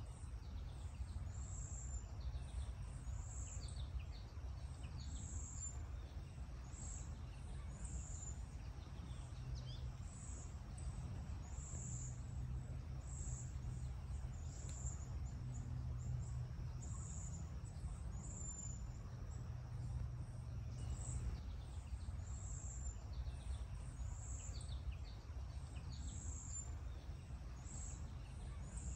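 Outdoor ambience: a steady low rumble under short, high chirps that repeat about once a second, with a few quick falling calls now and then.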